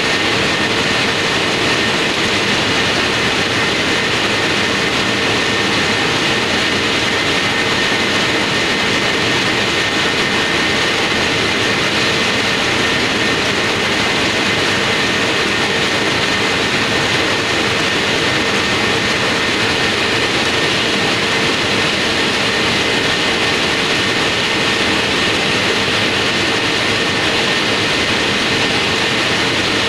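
Factory production machine running steadily as a yellow film sheet feeds over its rollers: a loud, unbroken mechanical noise with a constant hum of several steady tones.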